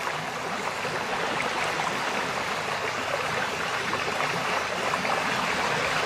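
Ocean surf breaking and washing against rocky sea cliffs: a steady rushing noise that grows a little louder toward the end.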